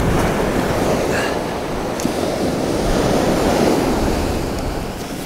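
Sea waves washing up a sandy beach and drawing back, a steady rushing surf that eases toward the end.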